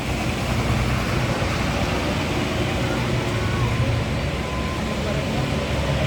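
Coach bus engine and road traffic noise, steady and mostly low-pitched.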